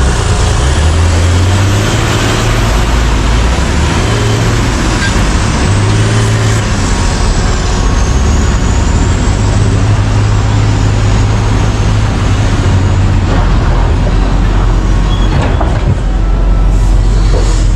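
Komatsu PC1350-11R mining excavator's diesel engine working under varying load, its low drone stepping up and down as the machine digs and swings. A thin high whine rises and falls over the top of it.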